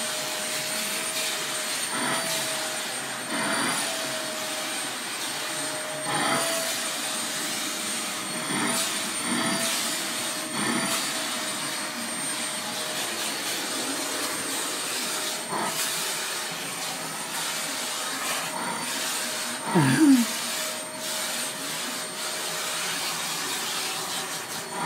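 Household vacuum cleaner running steadily as it is drawn over a Golden Retriever's belly fur, its hum and high whine wavering slightly in pitch as the nozzle moves. About twenty seconds in, a brief louder sound rising in pitch stands out over the motor.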